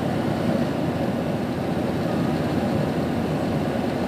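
Steady drone of engine and airflow noise inside a passenger jet's cabin in flight, heard from a window seat.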